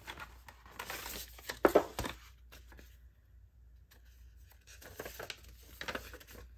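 Paper and thin card rustling and crinkling as a printed instruction sheet is handled and pulled from a cardboard lampshade packet, with the busiest, loudest handling in the first two seconds, a short lull, then lighter rustles.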